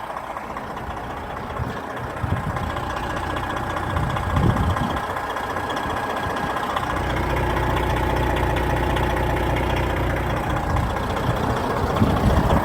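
Peterbilt dump truck's Detroit Series 60 inline-six diesel idling steadily, coming through stronger from about seven seconds in.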